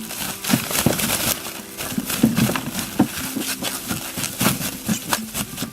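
Firewood being handled and laid out on snow: irregular knocks and crunches, several a second at times.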